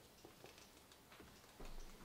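Faint crinkling and ticking of paper being folded and creased by hand, with a soft low bump late on.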